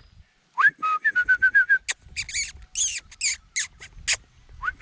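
A person whistling to call dogs: a rising whistle, then a quick run of short, even whistle pips at about six a second. A few sharp hissing clicks follow, and the rising whistle and pips start again near the end.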